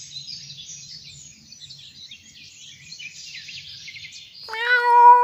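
Many birds chirping and twittering as a forest ambience, over a faint low rumble. About four and a half seconds in, a loud steady pitched tone, rising slightly, cuts in and stops abruptly.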